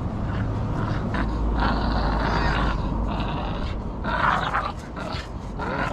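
Shorty Bull dog growling in rough bursts as it hangs from and tugs at a rope on a spring pole: three bouts, the longest about a second long, the loudest about four seconds in.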